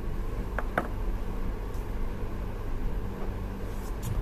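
Room tone: a steady low hum over a hiss, with a few small clicks, two close together under a second in and one near the end.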